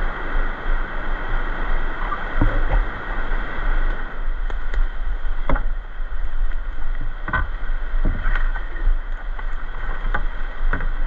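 Whitewater kayak on a rushing river: a steady rush of water with a paddle blade splashing into it every second or two.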